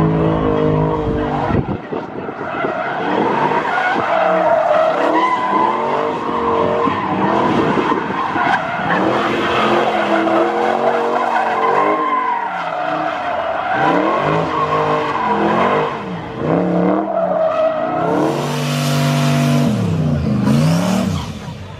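Car engine revving hard, its pitch sweeping up and down again and again, while the tires skid and squeal across the track. Near the end there are two harsh bursts of tire hiss.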